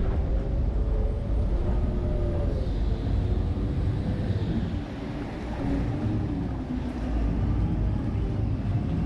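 Boat's engine running steadily with a deep rumble, with wind buffeting the microphone.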